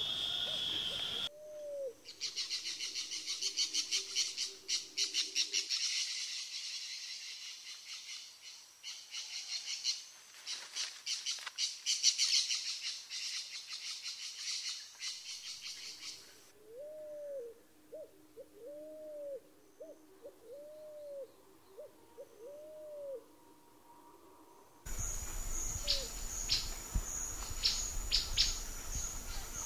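Birds calling. First comes a long stretch of fast, high, pulsing chatter. Then, after about 16 seconds, a run of six short, low hooting notes follows, each rising and falling, about one a second.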